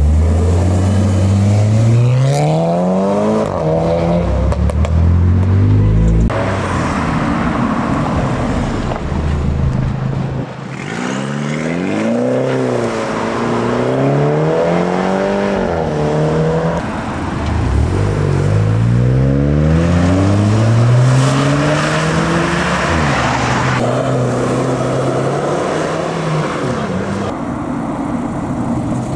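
Car engines revving hard and accelerating through the gears, the pitch climbing and dropping back at each shift several times. A stretch of quick up-and-down throttle blips comes about halfway through.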